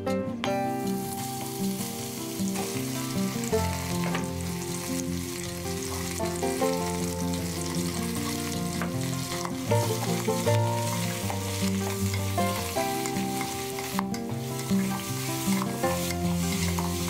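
Hot oil sizzling as whole spices and raw mutton pieces fry in a pressure cooker, with a wooden spoon stirring the meat. Soft background music with held notes plays underneath.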